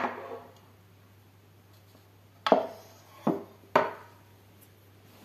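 Metal LED floodlight housing knocked and set down on a table: a sharp knock right at the start, then three more close together a little past halfway, each with a short ring.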